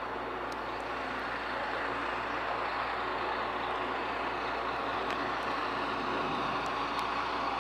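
Diesel railcar engine and running noise heard from inside the passenger cabin as the train pulls away from a station, a steady drone growing gradually louder.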